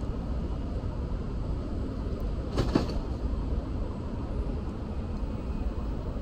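Steady low rumble of city street noise, with one brief sharp clatter about two and a half seconds in.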